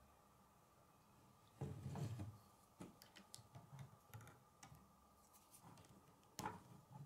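K'nex plastic rods and connectors being handled and clicked into place on a model: a knock of handling about a second and a half in, then a run of small plastic clicks, and another knock near the end.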